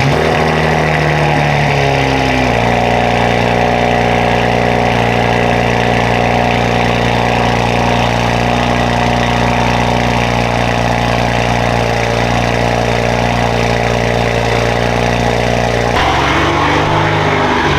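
BMW 335i's 3.0-litre turbocharged straight-six idling through a freshly installed VRSF aftermarket exhaust, just after a push-button start. The idle steps down and settles about two and a half seconds in, then rises briefly near the end before dropping back.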